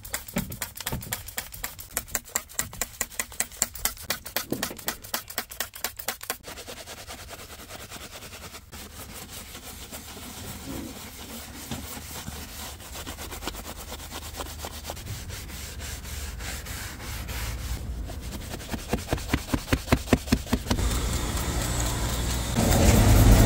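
A hand trigger spray bottle pumped in quick squirts, about three a second, then a microfiber towel rubbing cleaner foam over a plastic door-sill step. More rapid squirts of spray follow near the end.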